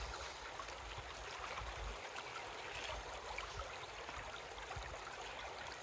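Steady rush of a shallow river running over rocks.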